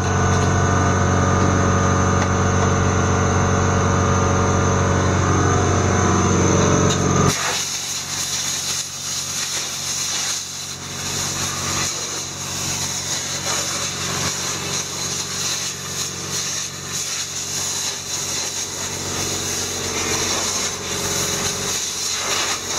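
A motor-driven machine hums steadily, then cuts off abruptly about seven seconds in, leaving a quieter, uneven noise.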